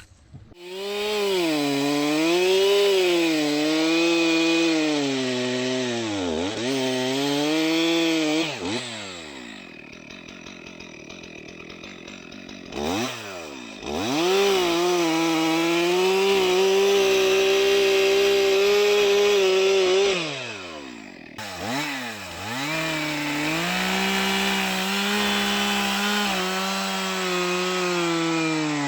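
Chainsaw running at high revs and cutting wood, its pitch sagging and recovering under load. It drops to idle for a few seconds about a third of the way in, revs back up to a steady high note, dips again, then returns to cutting.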